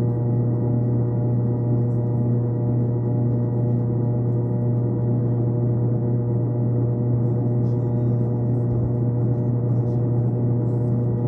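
A steady, unchanging low drone of several held tones.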